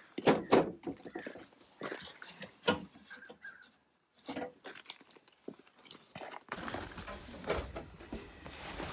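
Scattered clicks and knocks of tools and parts being handled at a work bench, with a brief dead silence about four seconds in and a steady hiss of background noise coming in later.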